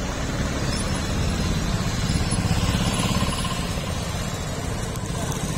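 Street traffic: the engines of passing motor vehicles, motorcycles and a small truck among them, as a steady low rumble that grows a little louder about halfway through.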